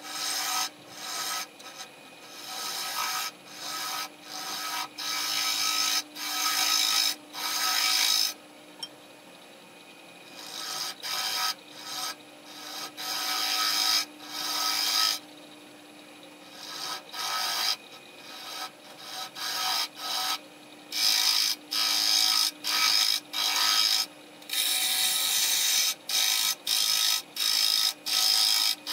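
Bowl gouge cutting the inside of a small black walnut bowl spinning on a wood lathe: a run of short scraping cuts, at times a few a second, broken by brief gaps and a couple of longer pauses, over the steady hum of the lathe. The footage is sped up.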